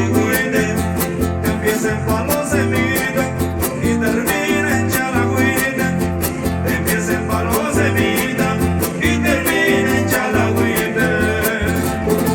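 Huapango (son huasteco) played by a Huasteca trio: a violin melody over the steady rhythmic strumming of jarana and huapanguera guitars.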